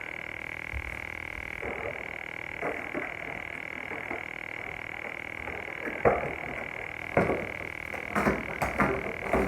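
Ring light tripod parts handled by hand, with scattered knocks and clicks: a few faint ones early, a louder one about six seconds in, and a cluster near the end, over a steady high-pitched whine.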